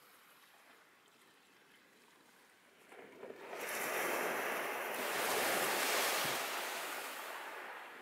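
A small wave breaking and washing up a shingle beach: a faint hiss of sea at first, then about three seconds in a rising rush of surf over the pebbles that peaks and slowly dies away.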